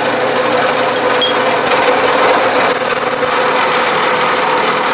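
Milling machine running a half-inch end mill as it cuts into a blank of annealed tool steel, notching its corner to form a quarter-inch radius. Steady machine noise with a high whine that shifts in pitch a little over three seconds in.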